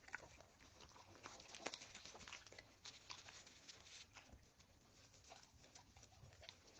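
A dog eating: faint, irregular clicks and crunches of chewing, coming several times a second.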